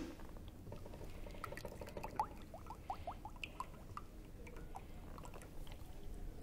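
Cream poured from a carton into a stainless steel saucepan: faint glugging, with a quick run of short rising gurgles about two to three seconds in.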